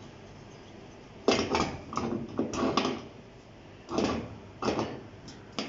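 Solid brass gas-burner crown handled and fitted onto its burner base on a stainless steel hob: short metal knocks and scrapes, a cluster of them starting about a second in and a few more near the end.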